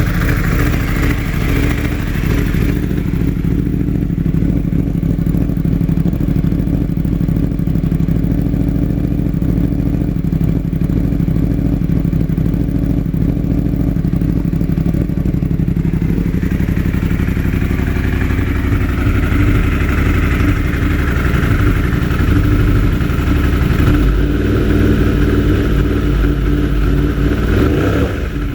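2016 Yamaha R1's crossplane inline-four engine running steadily with a constant misfire on cylinder 4, a fault that swapping its ignition coil with cylinder 1 did not move.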